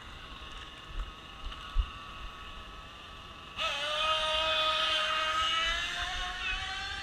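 A small engine cuts in about halfway through and runs with a steady whine that slowly rises in pitch, after a couple of soft low thumps.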